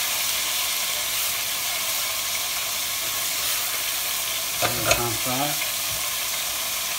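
Diced onions and smoky bacon sizzling in hot oil in a saucepan, stirred with a silicone spatula: a steady frying hiss throughout. A short bit of voice comes through about five seconds in.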